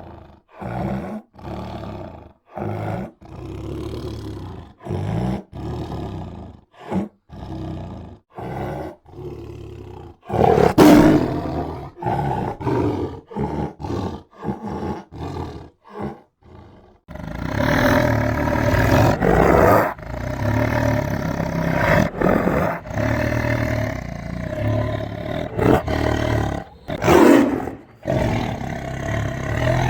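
Tiger roaring: a quick run of short, grunting roars at well over one a second, one louder roar in between, then from a little past halfway a long stretch of loud, nearly unbroken roaring with only brief breaks.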